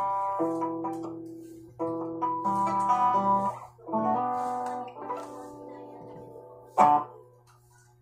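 JCraft Telecaster-style electric guitar played clean through a small 10-watt practice amp, with no effects. Several chords are picked and let ring, with new ones struck about two and four seconds in. A short sharp strum near the end dies away, over a faint low hum.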